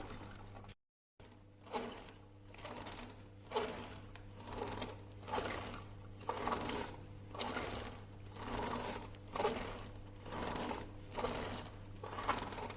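BMW S1000RR chain and drivetrain turning, giving a rhythmic noise that pulses about twice a second over a low steady hum. The abnormal noise is suspected to come from a failed bearing.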